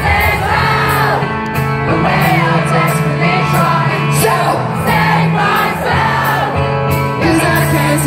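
Live pop-punk band in full flow: distorted guitars, bass and drums with a lead singer's voice over them and cymbals crashing steadily.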